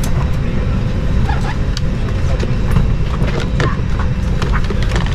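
Steady low rumble of a vehicle in motion, heard from inside, with scattered clicks and rattles and faint voices.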